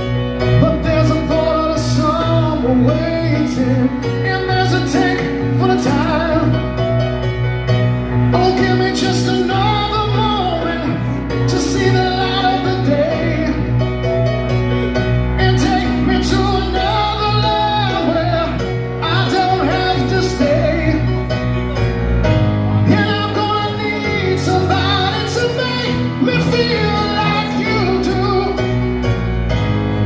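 Live rock band playing a slow ballad, with a male lead voice singing over the band; the bass line changes about two-thirds of the way through.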